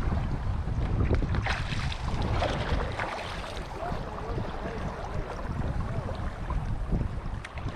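Wind buffeting the microphone in a heavy, uneven rumble, with water rushing and splashing against a kayak's hull as it sails across the wind.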